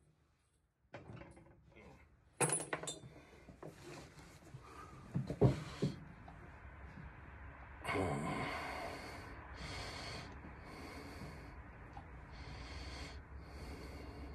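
Handling noise from the phone as it is picked up and held close: rubbing and small knocks, the loudest knock about five seconds in. From about eight seconds on comes a steady rustling close to the microphone that swells about once a second.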